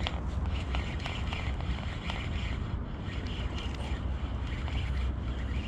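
Wind rumbling steadily on the microphone, over the faint whirr and light clicks of a spinning reel (Shimano Sienna 2500) being cranked to bring in a hooked fish.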